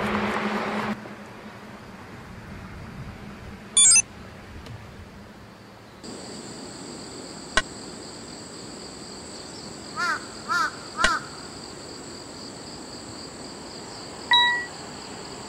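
A crow cawing three times in quick succession about ten seconds in, over a steady high-pitched hum. Road noise cuts off about a second in, a sharp high burst comes about four seconds in, and a short fading tone sounds near the end.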